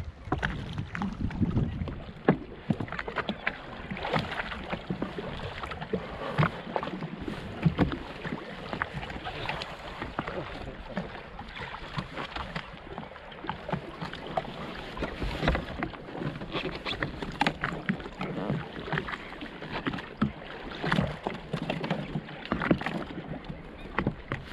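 Water slapping and lapping against the hull of a jet ski sitting on the sea, in many irregular small splashes and knocks, with some wind on the microphone.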